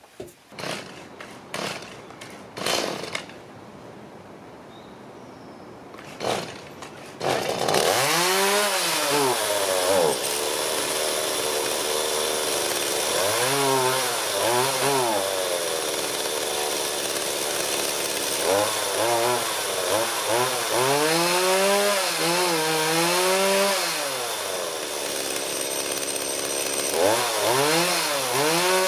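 A few knocks of handling, then a Stihl MS180 two-stroke chainsaw starts running about seven seconds in. It is revved up and down several times between spells of idle, on its test run with some air still in the fuel lines after a carburetor change.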